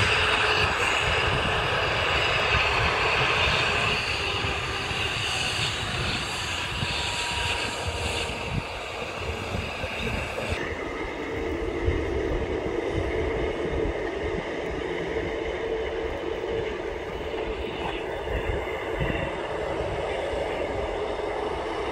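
Boeing 787 Dreamliner's jet engines running at taxi power: a steady whine and rush over a low rumble. The tone changes abruptly about ten seconds in.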